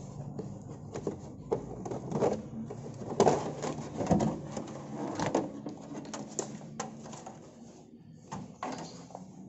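Hard plastic back cover of an LCD TV being handled and lifted off: an irregular run of clicks, knocks and rattles, loudest in the middle.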